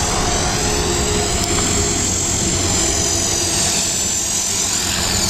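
CopterX 450 electric RC helicopter flying: a steady high whine from its motor and rotor that rises and falls in pitch as it moves about, over a low rumble.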